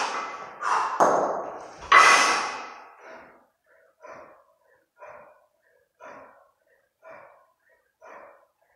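Kettlebell lifter breathing hard while holding two 32 kg kettlebells in the rack position between long-cycle reps: three loud, forceful exhalations in the first two seconds, then shorter, quieter breaths at a steady pace of about one a second.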